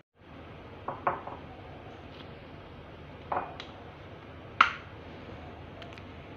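Several light clinks and knocks of a ceramic mug and an electric kettle being handled on a granite countertop, the sharpest click about four and a half seconds in.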